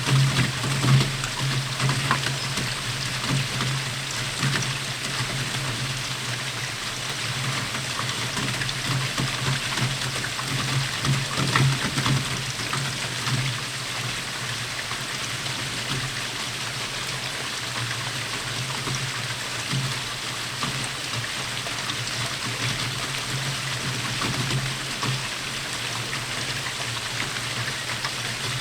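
Steady rainfall, a dense even patter of drops, with a few louder spatters in the first couple of seconds and again about twelve seconds in.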